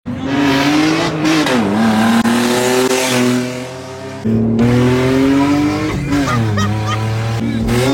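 BMW Z3 2.8i's straight-six engine revving up and down several times through a cut exhaust line, with a sudden cut to another pass about four seconds in. The exhaust line was cut because of a catalytic converter problem, and the engine sounds loud and raw.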